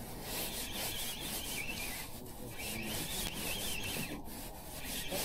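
Fishing reel being cranked to retrieve line on a hooked fish: a steady rasping whir with a wavering whine over it, stopping briefly twice as the winding pauses.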